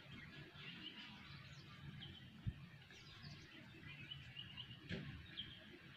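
Near silence: a faint outdoor background with scattered distant bird chirps, and one soft tap about two and a half seconds in.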